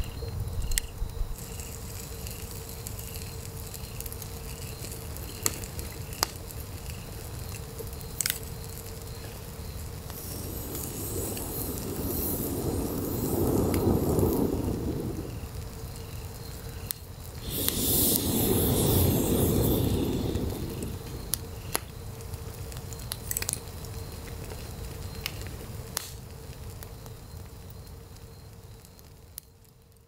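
Wood campfire burning, with scattered sharp crackles and pops and two longer, louder rushing swells. The sound fades out near the end.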